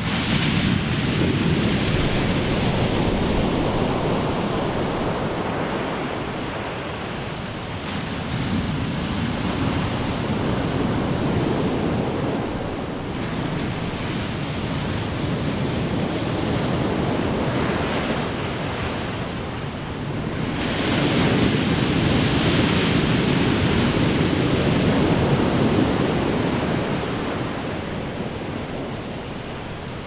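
Big ocean waves crashing, the surf swelling and fading in several surges a few seconds long. One wave breaks in suddenly right at the start, and the loudest surge comes about two-thirds of the way through, then dies away.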